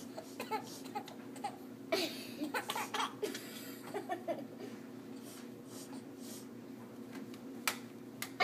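Baby giggling in short bursts, several in the first half, then a quieter stretch broken by a single sharp click near the end.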